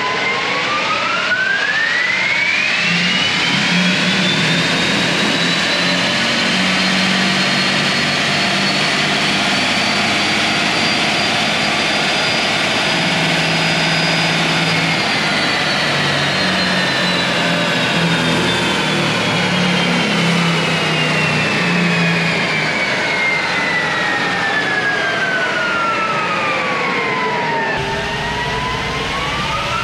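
2022 Ford F-150 Lightning's dual electric drive motors whining under load on a four-wheel chassis dyno, with tyres running on the rollers. The whine climbs smoothly in pitch as the truck speeds up for about half the time, then falls slowly as it winds down. Near the end the pitch bottoms out and starts rising again.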